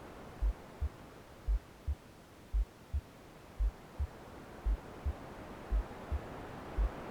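Heartbeat sound: a low double thump, lub-dub, about once a second, seven beats in all. Under it a soft white-noise hiss fades and then swells again.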